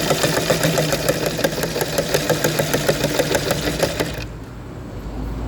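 Sewing machine running with a rapid, even stitching rhythm of about five to six stitches a second, then stopping about four seconds in, leaving a low hum.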